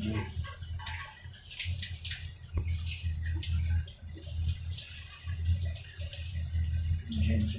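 Water running and splashing, with irregular drips and splatters, over a low hum that comes and goes.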